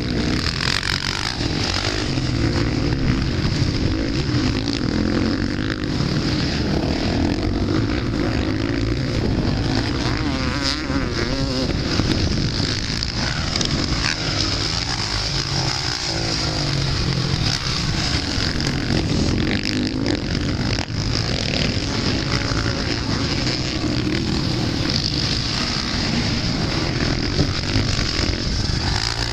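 Several motocross bike engines revving hard as riders race past over jumps, their pitch rising and falling as each bike accelerates and lifts off.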